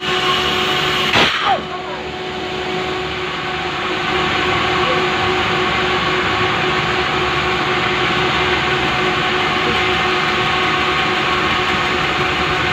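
Power saw running steadily while ripping a large Pulai log lengthwise, with a brief louder sound about a second in.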